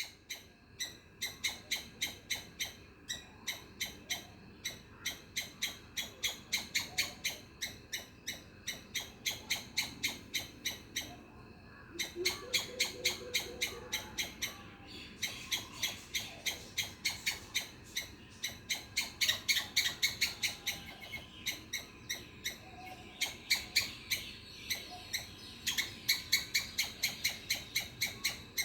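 Squirrel calling in a long, even run of short, sharp chirps, about three a second, broken by one short pause a little before halfway through.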